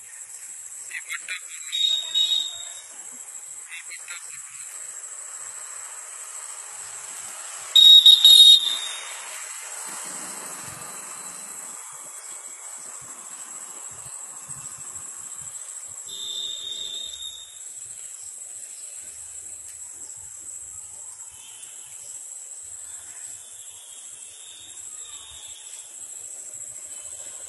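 Steady high-pitched trilling of crickets, broken by brief loud noises about two seconds in and again, loudest, about eight seconds in.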